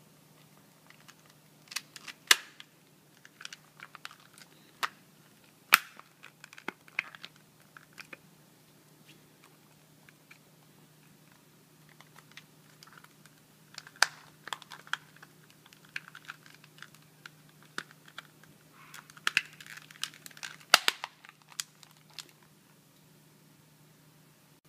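Plastic clicks and taps of a PlayStation 3 controller's shell and parts being handled and pressed together during reassembly: scattered sharp clicks, the loudest about six seconds in, and a busier run of clicking and rustling around twenty seconds in. A faint steady hum sits underneath.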